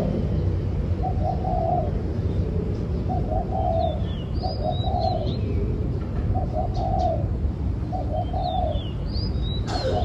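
Spotted dove cooing, a run of low rolling coo phrases repeated about once a second. Thin high chirps from a small bird come in twice, over a steady low rumble, and a sharp knock sounds just before the end.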